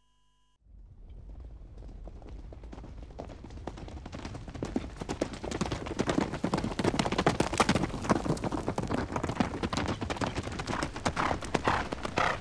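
Horse galloping over hard desert ground: a rapid run of hoofbeats that starts suddenly about half a second in and grows steadily louder as the horse approaches.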